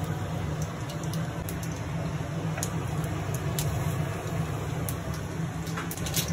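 Seeds sizzling in hot oil in a stainless-steel kadai, with a few scattered faint crackles over a steady low hum.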